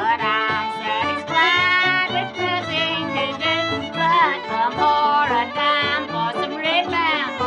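Fiddle playing an instrumental break in a country song: a sliding, bowed melody with other instruments accompanying underneath.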